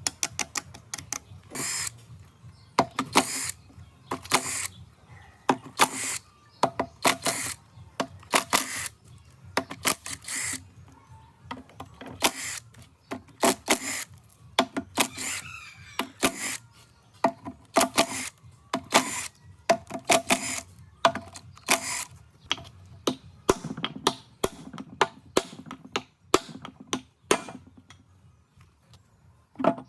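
Irregular metal clinks and knocks, many with a short ring, as metal tools and engine parts are handled and struck against each other.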